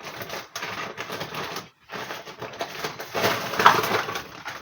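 Crinkling and rustling of shopping packaging being handled, in two long stretches with a short silence between them about two seconds in.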